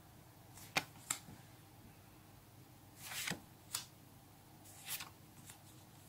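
A stack of Panini stickers flipped through by hand, each sticker slid off the front and put to the back: a few sharp paper flicks and soft sliding swishes.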